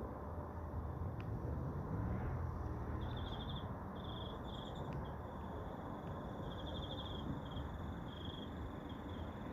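Insects chirping in short, pulsed trills on one high pitch, over a low rumble that swells about two seconds in and then settles.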